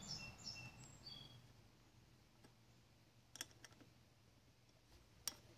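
Near silence, broken by a few faint metallic clicks from a wrench on a nut welded onto a broken stud in an aluminium cylinder head. A few faint short high chirps come in the first second.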